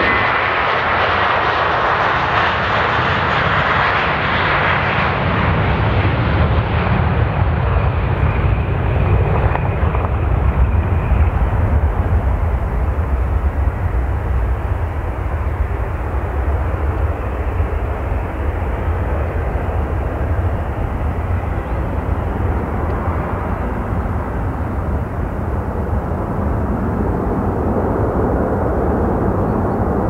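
Twin-engine jet airliner at takeoff power climbing out, its engine noise heard from behind. The higher hiss is strongest for the first ten seconds or so, then fades, leaving a steady low rumble as the aircraft climbs away.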